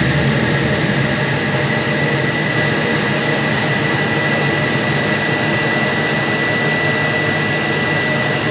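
Large 1300-ton centrifugal chiller compressor running loud and steady, with a constant high whine over a rumbling noise. The chiller is surging, which the technicians put down to a low refrigerant charge and low evaporator pressure.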